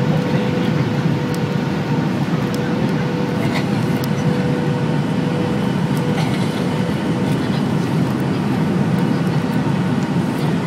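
Boeing 737-800 cabin noise on final approach: a steady rumble of airflow and its CFM56 jet engines, heard from inside the cabin, with a steady low whine running through it.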